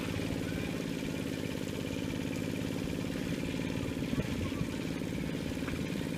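Small engine running steadily at a constant speed, with a fast, even putter.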